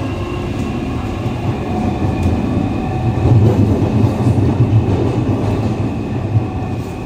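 Interior of a Siemens-Adtranz Type A1 metro car running through a tunnel: steady rumble of wheels on track, with steady tones from the train's GTO-VVVF traction inverter above it. The rumble grows louder about three seconds in.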